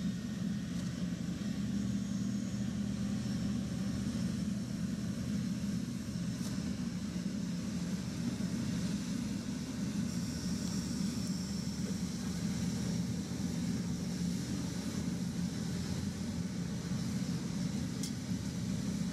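Large diesel engine running steadily with a constant low drone. A faint click about six seconds in and another near the end.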